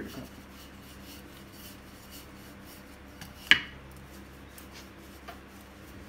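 Faint rubbing and patting of pastry dough being folded and turned by hand on a countertop, with one sharp clink about three and a half seconds in and a couple of lighter ticks.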